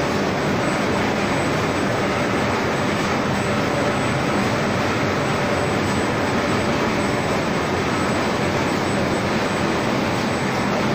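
Six-colour flexographic printing press running: a steady, even machine noise with a faint constant hum and no separate knocks.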